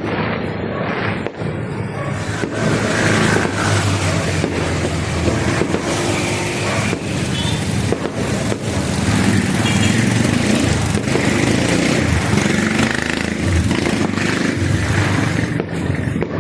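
Fireworks going off: a continuous dense rumble broken by sharp bangs every second or two.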